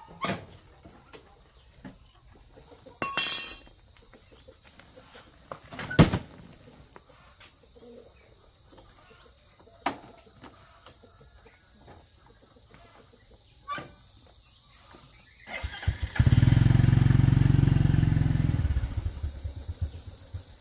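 A few scattered sharp knocks, the loudest about six seconds in, then a motor running loudly for about four seconds and fading away, over a steady high whine.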